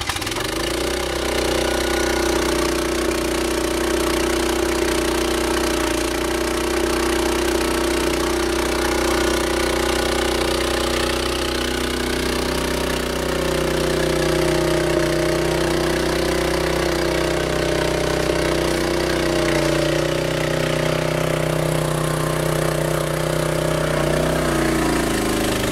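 The Kärcher 3000 PSI pressure washer's 9 hp Honda single-cylinder engine catches on the pull cord, started on choke with the water still off, and settles into a steady run. Near the end its note shifts as the pump takes load and the wand starts spraying.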